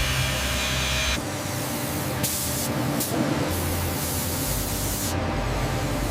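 Abrasive water jet cutter running: a steady, loud high-pressure hiss over a low hum. The hiss changes in tone abruptly about a second in, and again around two and three seconds in.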